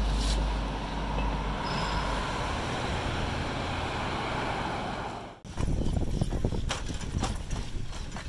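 Road traffic at a street intersection: a steady rush of passing cars. About five and a half seconds in it cuts off abruptly, giving way to uneven low rumbling with scattered light clicks.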